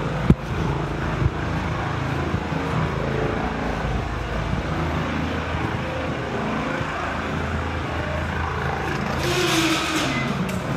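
Steady low mechanical hum, like a vehicle engine or outdoor machinery running. Near the end comes a short hiss and a brief falling squeak as a glass entrance door is pushed open.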